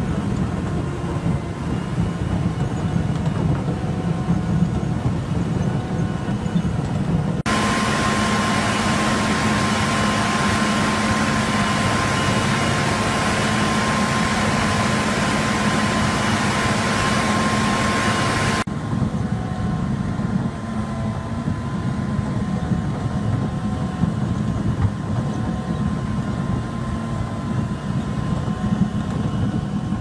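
Heavy trenching machines running and digging in soil: a chain trencher's engine and cutting chain, then, from about seven seconds in, a large TRS 1675 track-mounted trencher, brighter and louder with a steady whine. About eighteen seconds in it changes back to a lower, rougher machine sound.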